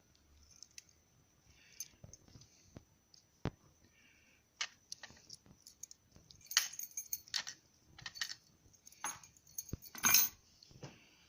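Small metal clicks and clinks from a pin-tumbler lock cylinder being handled and taken apart with a shim, irregular and growing busier, loudest around ten seconds in.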